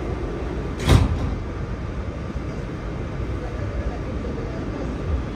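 Sliding doors of an R211A subway car closing with a single sharp thud about a second in, over the car's steady rumble and hum.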